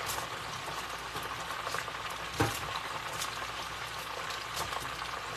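Chicken wings deep-frying in a pot of hot oil: a steady bubbling sizzle with scattered crackles, as the wings are nearly done. A single sharp knock about two and a half seconds in.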